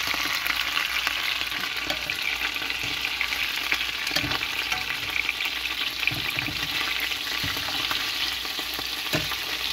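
Pigeon pieces frying in hot oil in a non-stick pan, sizzling and crackling steadily. A few short knocks from metal tongs come through as the pieces are lifted out.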